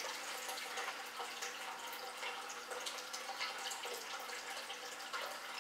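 Faint steady trickling and dripping of water from an aquarium filter, with a low steady hum under it.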